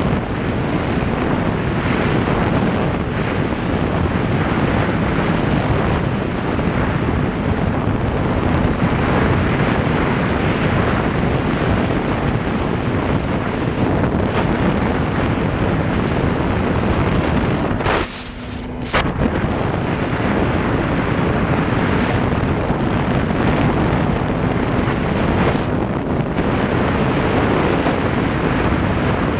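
Snowmobile running at speed, almost buried under heavy wind noise on the microphone. The noise drops for about a second two-thirds of the way through.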